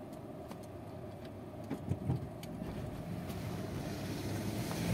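Mahindra Thar 4x4's engine running, heard from inside the cabin, its hum growing steadily louder towards the end, with a few faint clicks.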